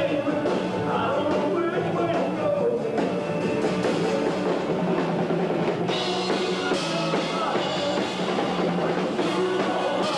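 Rock music: a singing voice over a drum kit and band, playing steadily.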